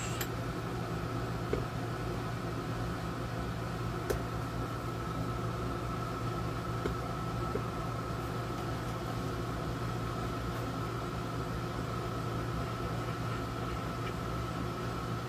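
Steady low electrical hum with a faint, steady high whine and a few small clicks, while an old solid-state AM/FM radio is being powered up; no station or music is heard yet.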